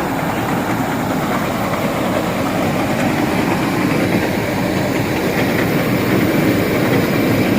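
Dasmesh 3100 mini combine harvester running steadily, a loud, even mechanical noise of engine and machinery that grows a little louder about halfway through.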